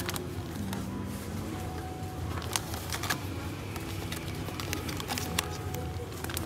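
Bagged spice packet being handled and pulled from a shelf holder: scattered light rustles and clicks over a steady low hum of shop ambience.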